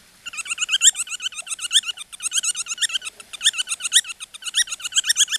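A handheld bat squeaking over and over in distress: rapid, wavering high chirps, several a second, with a short pause just at the start.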